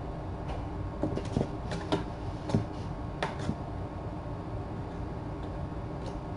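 Kittens playing on a cardboard scratcher, making a run of soft knocks and scratchy clicks over the first few seconds, against a steady low hum of room noise.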